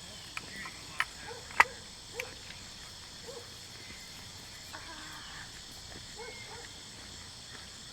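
A steady high insect chorus, with four sharp shotgun reports in the first couple of seconds, the loudest about a second and a half in.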